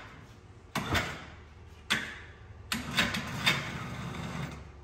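Four sharp knocks and clunks, about a second apart, from the strap-and-bracket lifting rig holding a suspended jet ski as it is handled and lowered, with a low hum under the later ones.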